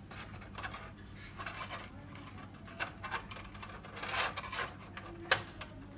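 Faint handling noises from a new LED backlight strip being fitted into place in an opened LED TV: scattered light scrapes and small clicks, with one sharper click about five seconds in.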